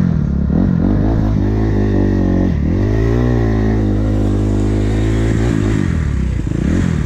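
Dirt bike engines running, one revving up and down with the throttle a few times over a steady lower engine drone.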